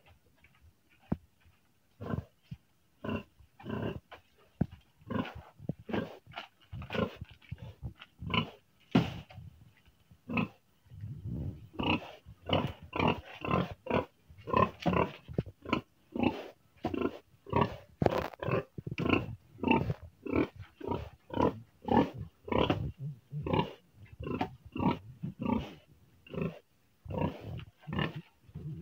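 Pigs grunting over and over in short calls, sparse at first and coming almost without pause from about ten seconds in.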